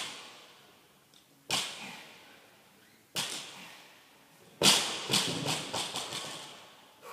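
Loaded Eleiko barbell with bumper plates set down on rubber gym flooring three times, about a second and a half apart, each thud echoing. About four and a half seconds in, the bar is dropped from standing with a louder crash, then bounces and rattles for about two seconds.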